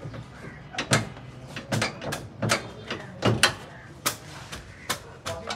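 A series of sharp knocks, about one a second, each with a brief ring after it.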